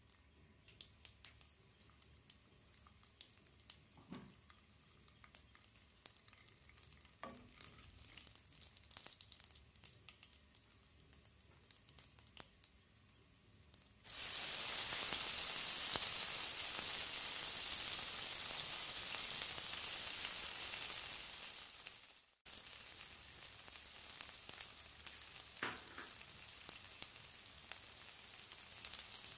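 Mustard seeds crackling faintly in hot oil in a pan, with scattered small pops. About fourteen seconds in, chopped green chillies and curry leaves hit the oil with a sudden loud sizzle that dies away after about eight seconds. Then a steady, quieter sizzle continues with chopped onion frying.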